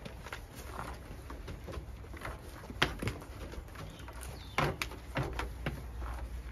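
Scattered clicks and knocks of hands working at a van's cab door, the sharpest knocks about three seconds in and again a couple of seconds later.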